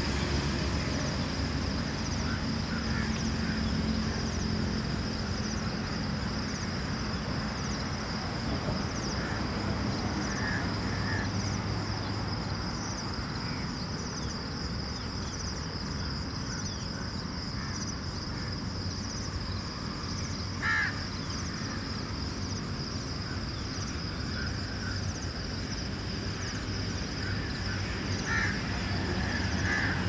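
Outdoor ambience in a grove: a steady high-pitched insect drone, with a few short bird calls, the loudest about twenty seconds in and another near the end, over a low steady rumble.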